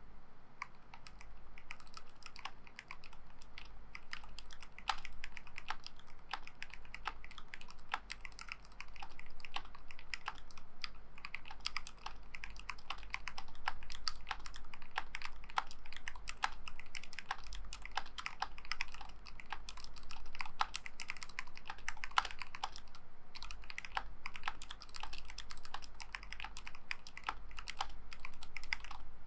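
Fast, continuous typing on a KBD75 custom mechanical keyboard with linear Tealios V2 switches in a brass plate: many keystrokes a second, with a brief pause about 23 seconds in.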